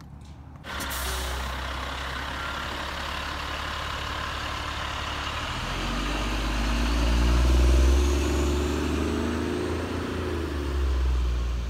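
Heavy utility service trucks and a crane truck running and pulling away, with a steady hiss from about a second in and a low engine rumble that builds past the middle, peaks, and swells again near the end.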